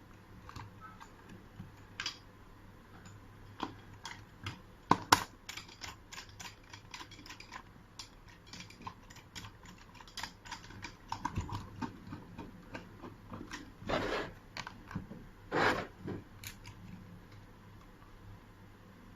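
Irregular clicks and light knocks of metal lock hardware being handled and fitted to a door, with a quick run of clicks and two short scraping rasps later on.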